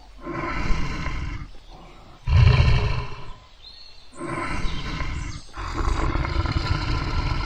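Tiger roaring, four long rough roars one after another, the second, about two seconds in, the loudest.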